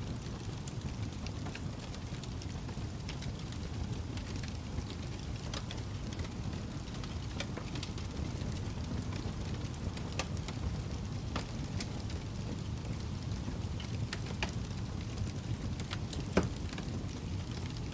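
Wood fire burning in a fireplace: a steady low rumble of flames with scattered crackles and pops, and one louder pop near the end.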